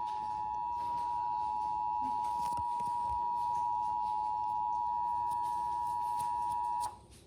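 Emergency Alert System two-tone attention signal: two steady pitches sounding together, loud and unchanging, cutting off abruptly near the end. It is the alert tone that opens the national test message.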